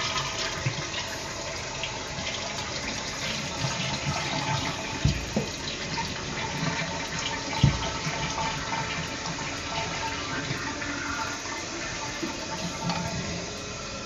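Toilet flushing and the tank refilling through a newly fitted fill valve: a steady rush of running water. Two dull knocks come through it, about five and seven and a half seconds in.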